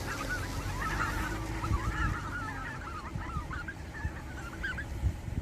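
A flock of wild migratory birds calling, many short overlapping calls at once, with a few low thumps underneath.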